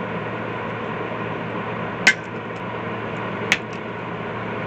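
Two sharp clicks about a second and a half apart, small parts or tools being handled while assembling a model car, over a steady background hum.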